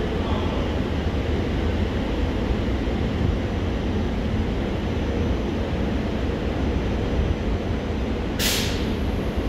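CSX freight train of autorack cars passing, a steady low rumble of wheels on rail. About a second before the end comes one short, sharp hiss of air.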